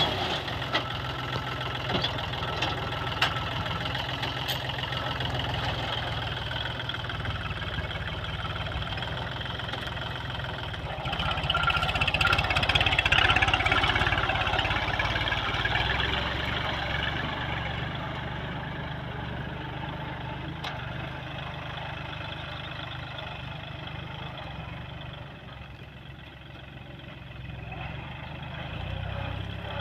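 Farm tractor engine running under load as its rotary tiller works the soil. It grows louder about twelve seconds in, fades to its quietest a few seconds before the end, then rises again.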